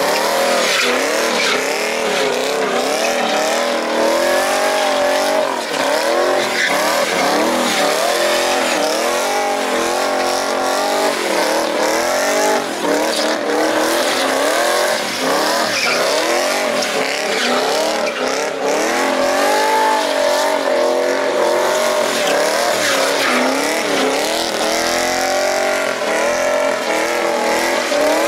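Car engine revving up and dropping back again and again, every second or two, with tyres squealing: a car being drifted in circles.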